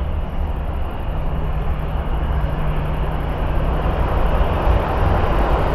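Jet airliner engines heard at a runway, a steady rumble that slowly grows louder.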